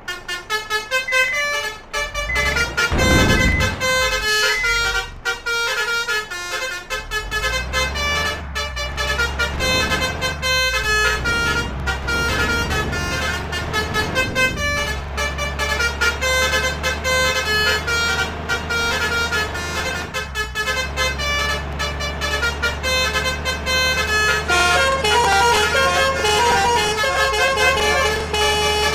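Basuri musical air horns on convoy vehicles playing rapid, changing melodic 'telolet' tunes without pause, over a steady low engine rumble that comes in about seven seconds in. A brief rush of noise sounds about three seconds in.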